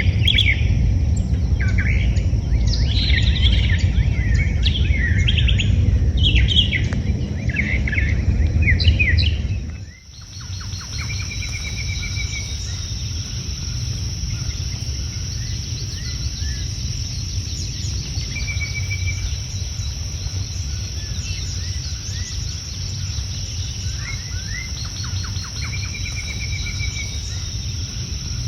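Several wild birds singing and chirping in quick, overlapping phrases over a low rumble. About ten seconds in the scene changes to a steady high-pitched buzz, which sounds like insects, broken every few seconds by a short whistled bird trill.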